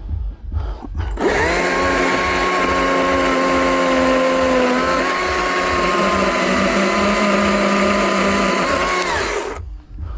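Chainsaw revving up about a second in and held at high speed for about eight seconds as it cuts into wood, its pitch dipping a little under load, then easing off near the end. A low pulsing runs underneath throughout.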